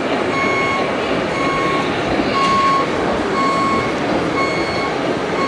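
Reversing warning beeper of an RC truck, beeping about once a second in short even tones over a steady rushing noise.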